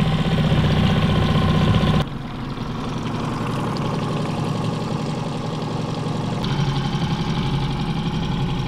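Mercury outboard motor running steadily at trolling speed. The sound shifts abruptly about two seconds in and again near the end.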